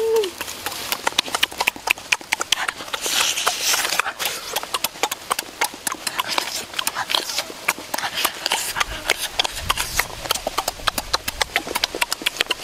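Mouth-close eating sounds of braised pig head: wet smacking, slurping and crunching as the glazed skin and meat are bitten and chewed, a dense run of quick irregular clicks, with a louder crunchy rustle about three seconds in.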